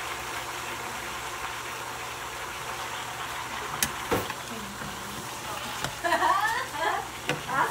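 Pieces of Italian gourd sizzling in a frying pan with a steady hiss, stirred with a wooden spatula and metal spoon that knock against the pan twice about four seconds in. A brief voice near the end.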